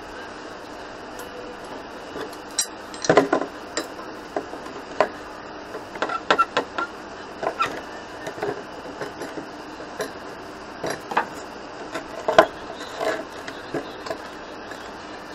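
Heavy steel chain handled and shifted by hand on a wooden board: irregular clinks and clanks of the links knocking together and against the wood, loudest about three seconds in and again near twelve seconds, over a steady faint hiss.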